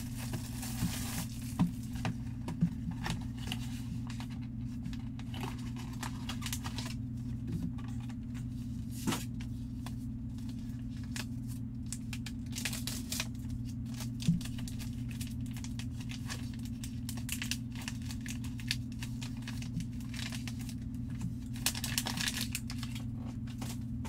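Plastic wrapping and a trading-card pack being torn open and crinkled by hand, in three short bursts (about a second in, around 13 s and near 22 s), with a few sharp taps between them.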